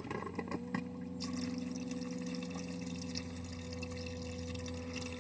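Small submersible pump switching on and humming steadily, with water trickling and pouring as it circulates through the tubing of a homemade ice-chest cooler heat exchanger. The hum comes in about half a second in and the water sound builds about a second in.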